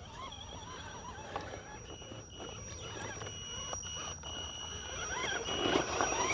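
Element RC Enduro Sendero crawler's electric motor and drivetrain whining, the pitch rising and falling with the throttle. It grows louder and busier near the end as the truck works over the trail.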